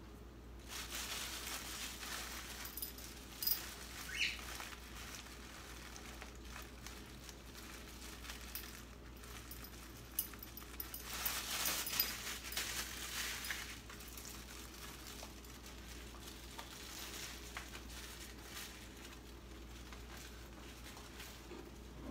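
Light rustling and pattering with a few small clicks and taps as sesame seeds are sprinkled from their packet over a plate of beef, over a faint steady low hum.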